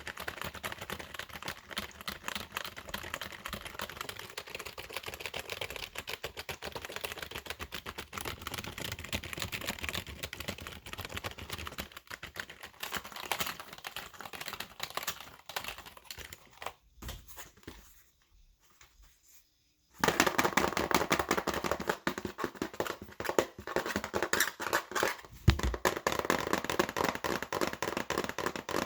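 Fast, hard typing on a computer keyboard: a dense, rapid run of key clicks. The typing stops for about three seconds a little past the middle, then resumes louder.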